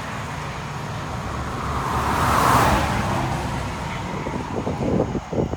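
A vehicle passing on the highway: its tyre and engine noise swells to a peak about two and a half seconds in and then fades, over a steady low traffic rumble.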